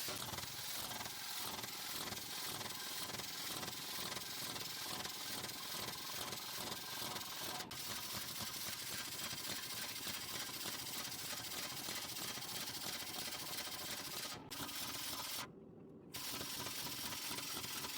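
A steady hissing noise, cut by two brief dropouts near the end.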